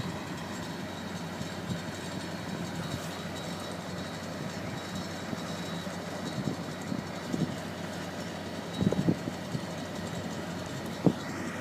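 Heavy crane's engine running steadily at a low idle, with a few short knocks and one sharp click near the end.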